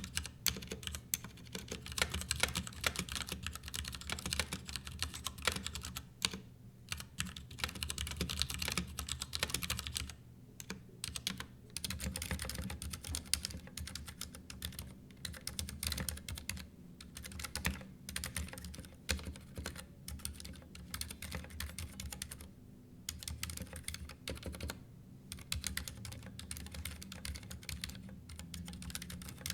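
Continuous typing on a Ducky mechanical keyboard, fast runs of key clicks and clacks with short pauses. The first stretch is on the Ducky Year of the Rat edition; after a brief pause about ten seconds in, it is on a Ducky One 2 Mini.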